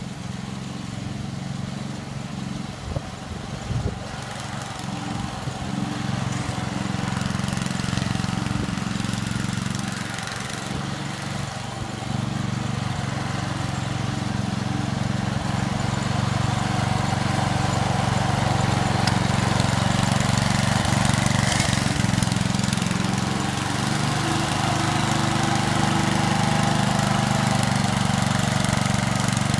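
Engine of a three-gang lawn mower running steadily, growing louder over the first half and then holding level. Two brief knocks can be heard a few seconds in.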